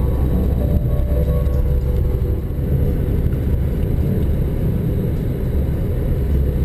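Steady low rumble of a car driving on the highway, its engine and tyre noise heard from inside the cabin.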